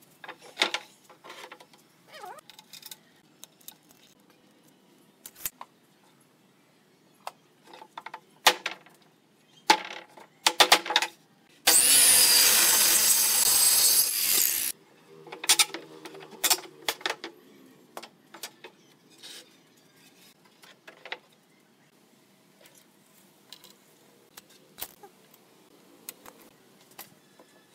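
Handheld circular saw cutting through a wooden board, one loud cut lasting about three seconds that starts about twelve seconds in. Around it are scattered sharp knocks and clatter of wood being handled on the bench.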